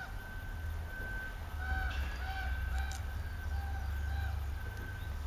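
An animal's repeated short, high-pitched calls, about two a second with brief gaps, some gently rising and falling, over a steady low rumble.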